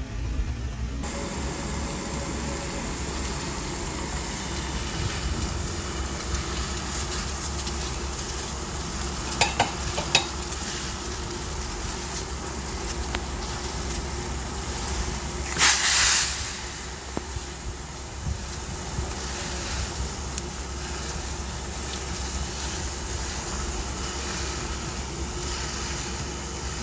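Bone broth of beef bones and chicken feet at a rolling boil in a stainless steel pot: a steady bubbling hiss. A few light knocks come about ten seconds in, and a brief louder burst of noise comes a little past halfway.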